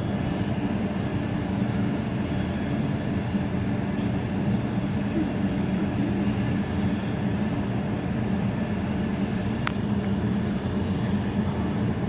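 Steady low hum and rumble of a power station's machinery, with one short click about ten seconds in.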